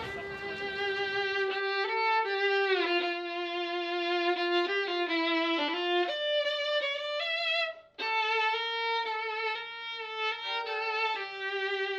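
Solo violin playing a melody of held notes, some sliding between pitches, with a brief break about eight seconds in.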